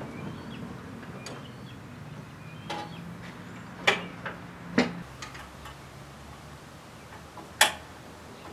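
A handful of separate metallic clicks and knocks as the steel hanger bar and its pin are worked into the brackets of an MTD Yard Machines 38-inch mower deck. The loudest come about four and five seconds in, with a sharp one near the end.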